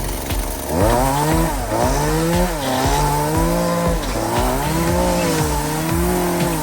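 Echo two-stroke chainsaw idling, then revved to full throttle about a second in and held there while cutting a log, its pitch sagging and recovering several times as the chain takes load.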